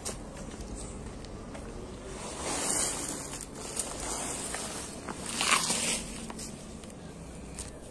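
Rustling and scuffing of a person moving close to the microphone, with two louder swells of rustle about two and a half and five and a half seconds in.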